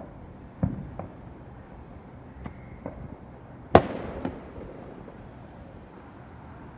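Fireworks going off: a string of sharp bangs, about six in all, the loudest nearly four seconds in, with a ringing tail after it.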